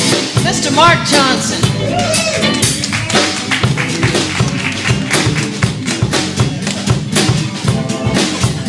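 Live blues band playing an instrumental break: drum kit keeping a steady beat under electric bass, keyboard and acoustic guitar, with a lead line bending in pitch about a second in.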